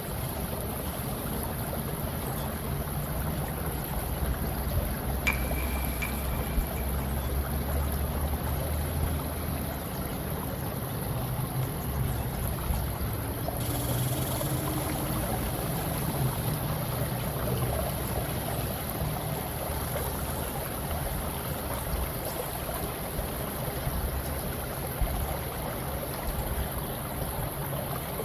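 Steady running water, like a stream trickling and gurgling, over a low rumble, with a short high tone about five seconds in.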